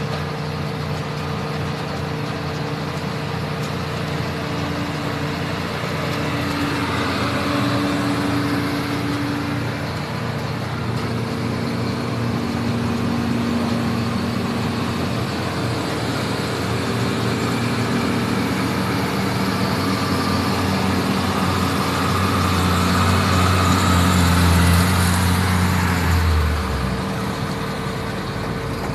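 Diesel engines of New Holland tractors, a Case motor grader and a loaded dump truck labouring in convoy up a slippery hill, their engine notes rising and falling under load. It is loudest late on as a heavy engine passes close, then its deep note drops away suddenly.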